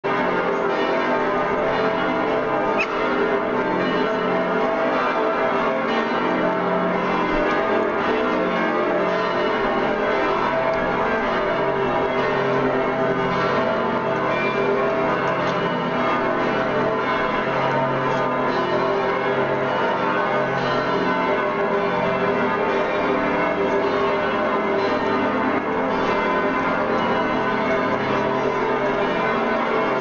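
Church bells of Munich's Frauenkirche cathedral pealing together, several bells overlapping in one dense, unbroken ringing: a mourning peal for the death of former Pope Benedict XVI.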